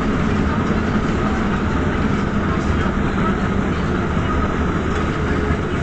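Ikarus city bus under way, heard from inside the passenger cabin: a steady low engine hum with road and body noise.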